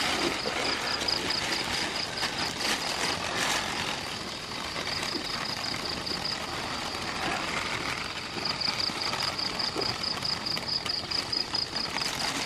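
Clear plastic bag crinkling and rustling as hands twist and shake it. Behind it an insect trills in a high, pulsing buzz that stops and starts twice.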